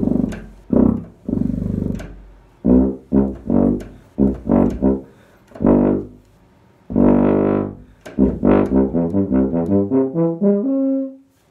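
CC tuba played solo: a string of short detached low notes, a longer held note about seven seconds in, then a quick run of notes climbing upward to a held final note.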